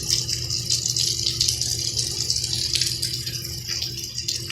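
Heavy rain pouring steadily, with many separate drips and splashes close by.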